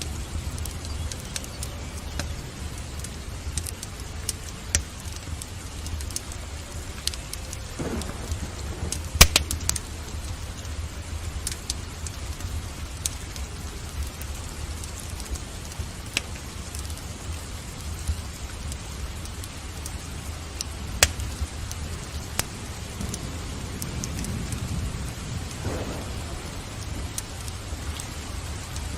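Steady rain with sharp crackles and pops from a wood fire, the loudest about nine seconds in and again near twenty-one seconds. Soft rumbles of thunder swell in the background.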